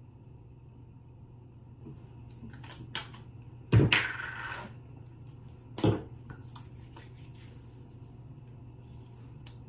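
Skincare containers and other small items being handled on a bathroom counter: scattered light clicks and two sharp knocks, the first about four seconds in followed by a second of rustling, over a steady low hum.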